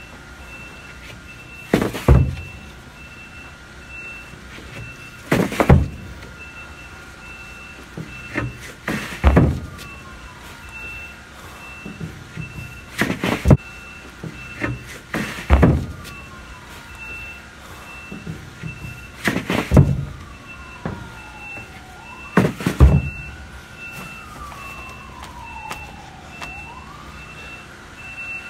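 Heavy thuds about every three to four seconds as drywall sheets are set down onto a stack, seven in all. Underneath runs a steady machine tone with a beep about twice a second, and now and then a falling whine.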